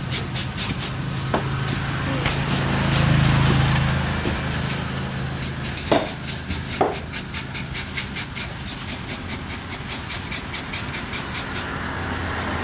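Heavy curved butcher's knife cutting skipjack tuna into steaks on a wooden chopping block: a string of short knocks as the blade chops through and meets the wood, with two louder ringing strikes about six and seven seconds in. A steady low hum runs underneath and swells around three seconds in.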